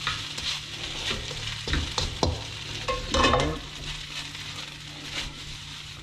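Fried rice sizzling in a nonstick fried rice pan on a gas burner while a spatula stirs and scrapes it, with several scrapes and knocks. The loudest is about three seconds in, and the sizzle quietens after that.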